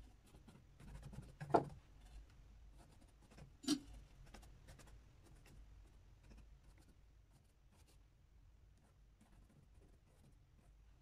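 Paintbrush scratching and dabbing oil paint on the palette and the painting panel in faint, irregular strokes. Two sharp knocks come about a second and a half in and again two seconds later.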